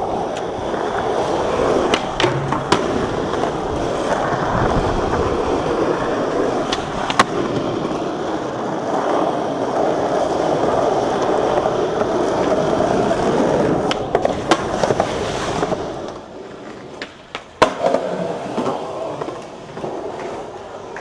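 Skateboard wheels rolling on rough asphalt, a steady grinding rumble broken now and then by sharp clacks of the board's tail popping and landing. About three quarters of the way through the rolling drops away, leaving quieter scattered clacks.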